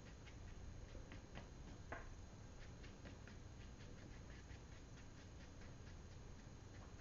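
Faint, irregular light ticks and scratches of a flat brush dabbing paint onto damp watercolour paper, a few a second, with one slightly louder tap about two seconds in.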